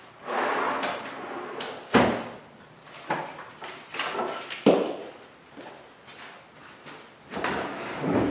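Wooden fold-down shelf being swung and folded away: scraping and sliding with several sharp wooden knocks, the loudest about two seconds in and just under five seconds in.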